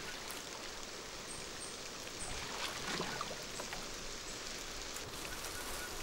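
Soft, steady outdoor ambience: an even hiss, with a couple of faint rustles near the middle.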